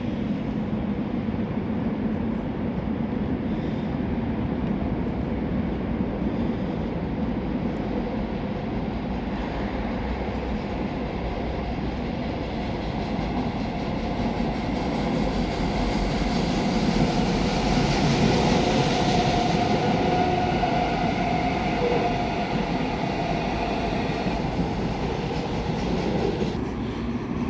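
Suin-Bundang Line electric commuter train running past with a steady rumble. It grows louder to a peak about two-thirds of the way through, with a brief whine near the loudest point, then falls away near the end.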